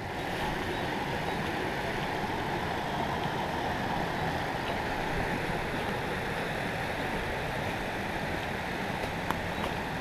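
Steady rushing of a rocky creek.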